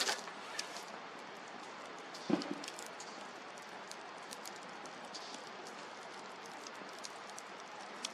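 Wood campfire crackling: a steady hiss with many scattered sharp pops, and two louder knocks, one at the very start and one about two seconds in.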